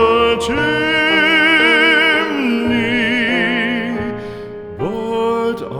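Solo classical-style singing with a wide vibrato, holding long sustained notes over a soft musical accompaniment. The phrase ends, and a new one begins near the end.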